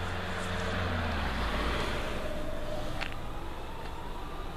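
DB Class 425 electric multiple unit approaching: a steady rumble and hiss of wheels on rail over a low hum, with a single sharp click about three seconds in.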